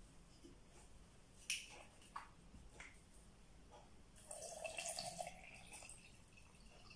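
Water poured from a plastic bottle into a glass mug, splashing loudest about four seconds in, after a few faint clicks.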